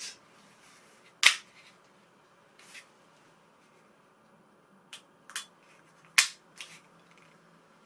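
An airsoft pistol being handled: six short sharp clicks and taps, the two loudest about a second in and about six seconds in.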